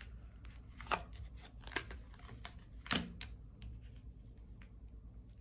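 Tarot cards being handled: a few sharp, separate snaps and taps of the cards, the loudest about three seconds in.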